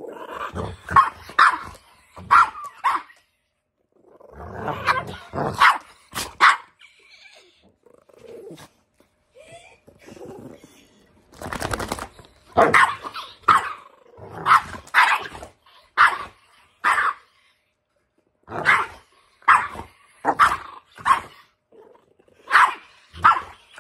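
Dogs barking face to face in repeated clusters of two to four short, sharp barks, with a quieter lull about a third of the way in.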